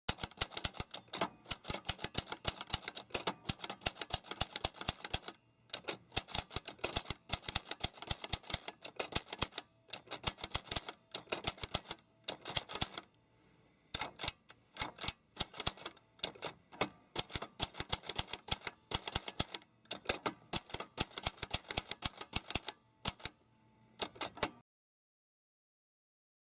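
Manual typewriter typing: rapid key strikes in long runs broken by short pauses, stopping shortly before the end.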